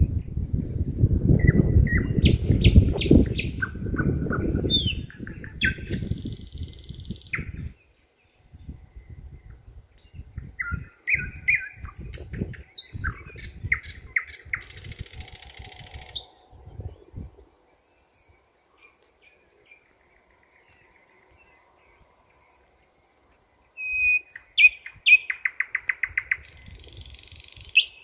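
Nightingale singing: varied phrases of whistles and fast repeated notes, broken by a long pause in the middle, with a loud rapid trill near the end. A low rumble of wind on the microphone runs through the first several seconds.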